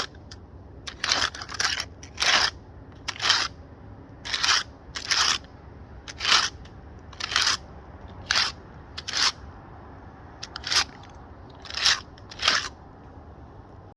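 A handful of shagbark hickory bark raked in short, crunchy scraping strokes, roughly a dozen at about one a second. It mimics a mature buck raking its antlers on a tree to announce its dominance.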